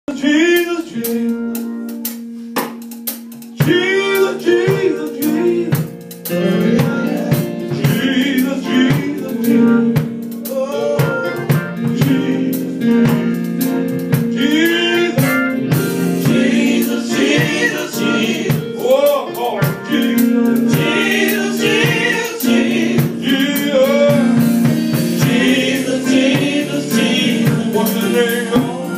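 Live gospel singing: a lead singer with a backing group, over held sustained chords, with drums joining about six seconds in.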